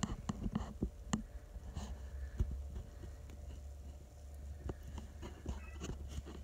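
Handling noise from a phone held close: soft scattered clicks and rustles, densest in the first second or so, over a faint steady low hum.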